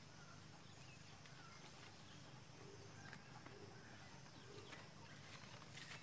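Quiet garden ambience: faint, brief bird chirps now and then over a low steady hum.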